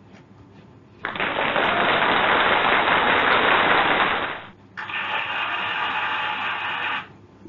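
A loud, hissing noise sound effect in two bursts: the first starts suddenly about a second in and lasts about three and a half seconds, and a shorter one of about two seconds follows after a brief gap.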